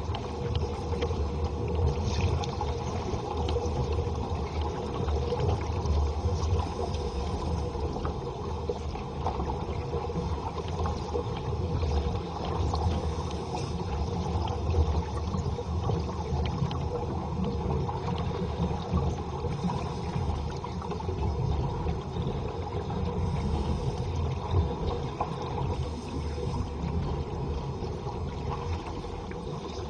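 Underwater ambience on a scuba cave dive: a steady low rumble of water with faint crackling.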